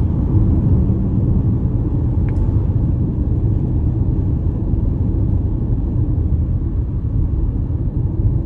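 Steady low road and wind rumble inside the cabin of a 2023 Ford Mustang Mach-E cruising at about 50 mph on a highway, with no engine note because the car is electric.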